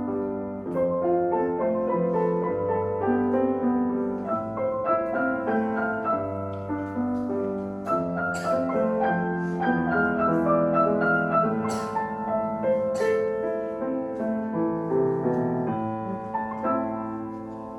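Solo piano playing a piece of overlapping notes and chords, ending on a chord that is left to ring and fade.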